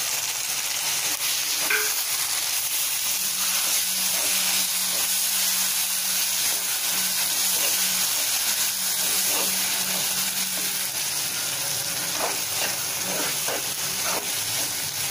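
Ground tomato puree and onions sizzling in hot oil in a nonstick kadai while a spatula stirs them: a steady frying hiss with a few light spatula strokes, mostly near the end.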